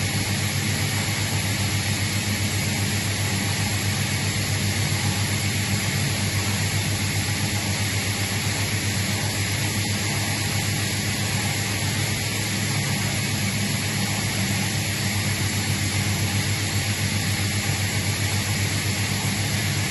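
Atlas Copco GA90+ oil-injected rotary screw air compressor running steadily at working pressure and temperature: a constant low hum under an even rushing of air.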